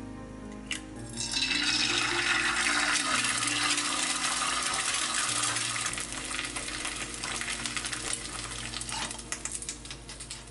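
An egg frying in hot oil in a nonstick wok. A sharp click comes as the egg goes in, then loud sizzling and spitting, which slowly dies down to scattered crackles. Soft background music plays underneath.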